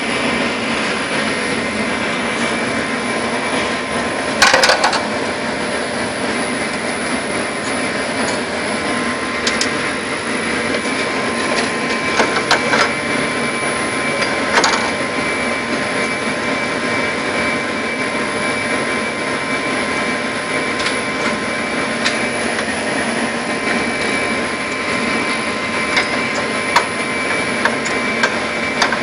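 Radio receiver static: a steady hiss with several faint constant whistle tones running through it, broken by occasional sharp crackles, the loudest about four seconds in.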